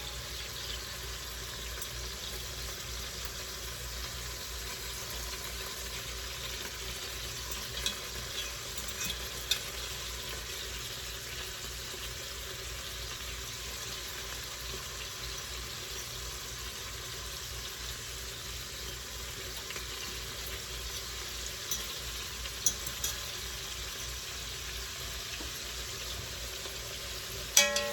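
Meatballs frying in a pot, a steady sizzle, with a few light clicks of a fork against the pot as they are turned.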